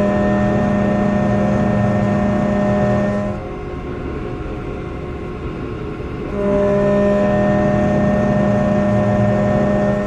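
Haas Desktop Mill spindle driving an end mill through a plastic block: a steady machine hum with a higher whine. It is louder for about three seconds, drops back for about three seconds, then swells again for the last four, as the cutter moves into and out of the material.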